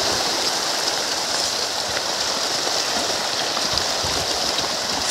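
A dense shoal of farmed pond fish thrashing and splashing at the water's surface as they feed, a steady, unbroken mass of splashing.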